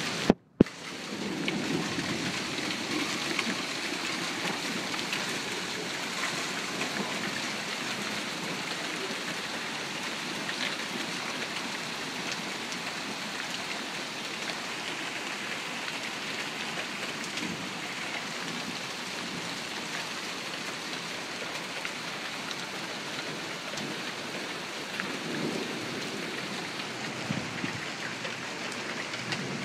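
Hailstorm: small hailstones and rain falling on a wooden walkway, lawn and pavement, a steady hiss with scattered faint ticks. About half a second in, the sound cuts out briefly between two sharp clicks.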